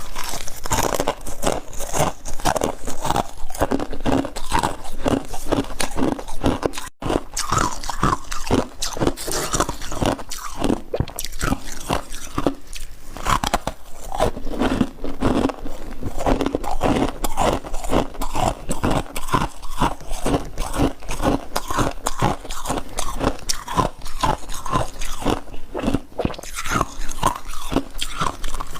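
Close-up crunching and chewing of frost ice: rapid, continuous crunches with a brief pause about seven seconds in.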